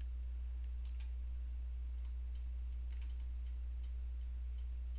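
Scattered clicks of a computer mouse and keyboard, about eight in all, over a steady low electrical hum.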